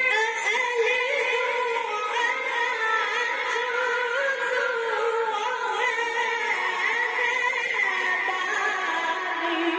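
Quranic recitation by a male reciter's voice, drawing out long ornamented melismatic notes that waver around a high pitch and slide lower near the end.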